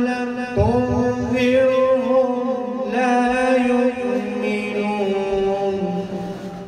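A man reciting verses of the Quran in melodic chanted style: long held notes with wavering ornaments. The phrase steps down in pitch partway through and fades away near the end.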